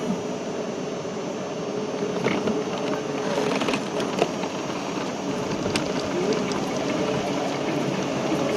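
City street noise: a steady hum of traffic and running vehicle engines, with a few faint clicks.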